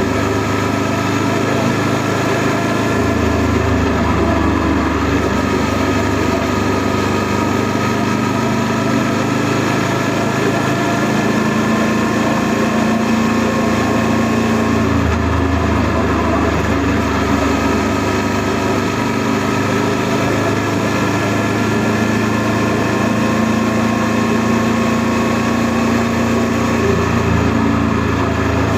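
Honda NC700S motorcycle's 670 cc parallel-twin engine running steadily under way. Its note shifts up and down a few times with throttle and speed.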